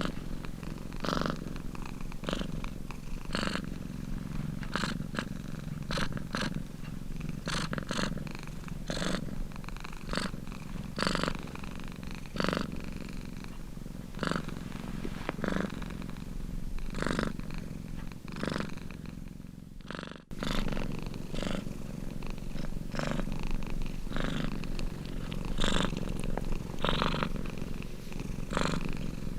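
Domestic cat purring steadily, swelling with each breath about once a second. It breaks off for a split second about two-thirds of the way through.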